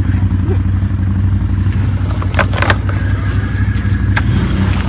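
Can-Am Outlander ATV engine running steadily while the quad sits hung up on a fallen branch, with two sharp knocks around the middle.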